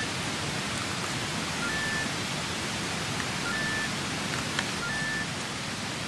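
Steady rushing of a mountain valley stream, with a few faint, short, high peeps heard over it.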